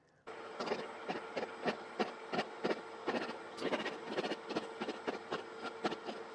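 Deckel FP2 milling machine running, an end mill cutting into a cast iron block: a steady machine hum with irregular ticking and clicking from the cut, starting a moment in.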